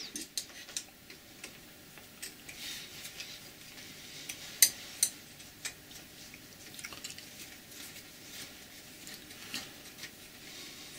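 Small metallic clicks and clinks of an Allen key being worked in the retaining screws of a Colchester lathe saddle's bed wiper, with two sharper clinks about halfway through.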